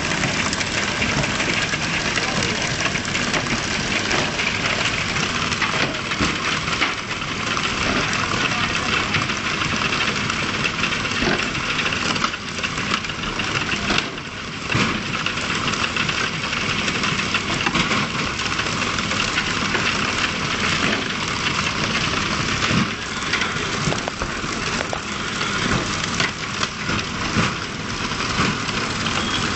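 A fishing boat's engine running steadily under a constant rush of water and splashing, with no break throughout.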